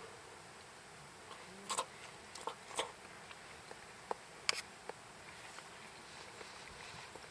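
Wood campfire crackling, with irregular sharp pops and small ticks, a few louder snaps in the first half.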